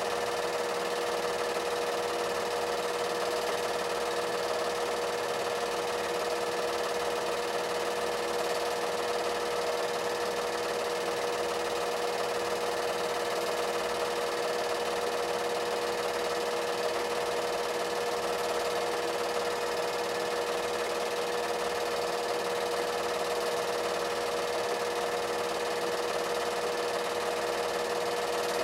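8mm film projector running: a steady mechanical whir with a constant hum.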